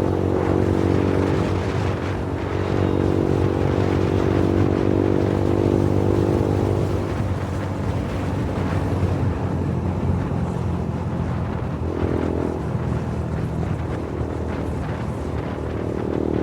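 Suzuki Gixxer motorcycle engine running at a fairly steady pitch while being ridden, with wind rushing over the microphone.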